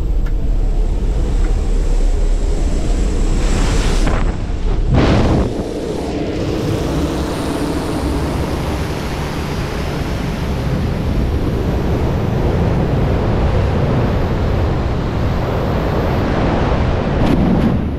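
Aircraft engine and slipstream noise at an open jump-plane door; about five seconds in it gives way to a steady rush of wind over a helmet camera in wingsuit freefall.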